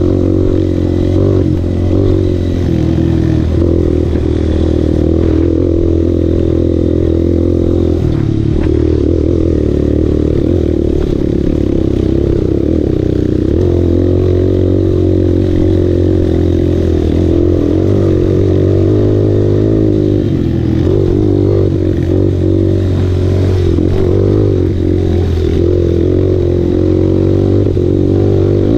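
Enduro motorcycle's engine running steadily at riding speed, heard from on the bike, its pitch dipping briefly about eight seconds in.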